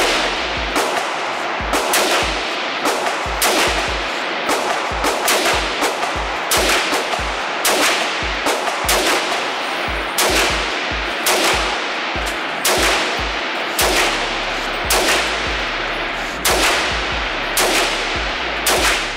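Rifle fired as single shots in quick strings, about thirty sharp reports, one to three a second and unevenly spaced. Each shot rings with echo off the indoor range's concrete walls.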